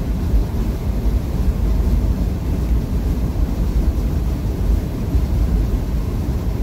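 Steady low rumble of a Freightliner Cascadia semi truck's engine and road noise while it drives on the highway.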